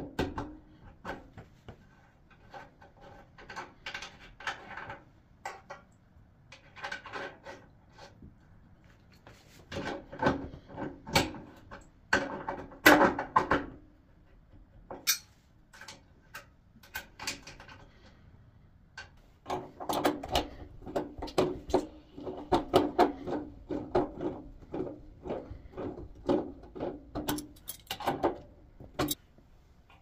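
Hand tools on a steel panel radiator: an adjustable spanner clicking and scraping as it tightens the bleed valve, and metal clinks as a bleed key closes the bleed screw. Later come repeated rubbing, creaking turns as the radiator valves are opened by hand.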